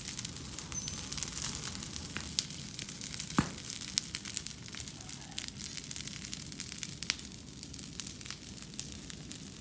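Brush pile fire crackling: burning branches and leaves give dense, irregular snaps and pops, with one louder pop about three and a half seconds in.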